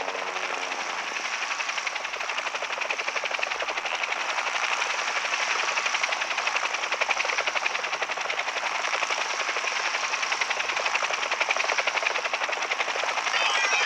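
Cartoon helicopter sound effect: rotor blades chopping in a fast, steady beat as a small helicopter flies overhead.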